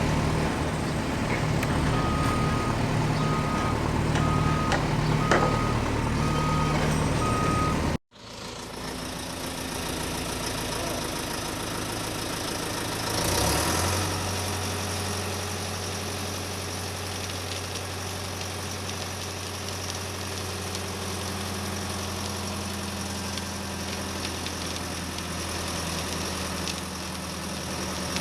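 A truck engine humming while a reversing alarm beeps at an even pace. After a sudden cut, an engine idles with a steady low drone, swelling briefly about 13 seconds in.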